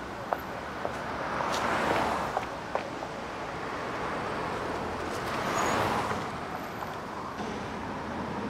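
Cars passing on a city street, each one a whoosh that swells and fades, about two seconds in and again near six seconds, over steady traffic noise. A few sharp clicks sound in the first three seconds.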